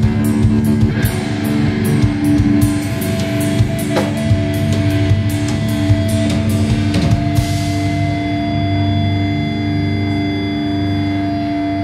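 Live heavy rock band with distorted electric guitars and drum kit playing; the drum hits stop about seven seconds in, leaving the guitars ringing out in steady sustained tones.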